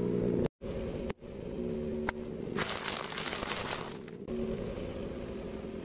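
A car tyre rolling slowly on asphalt and crushing crunchy objects, with a burst of crackling about three seconds in, over the low rumble of the car.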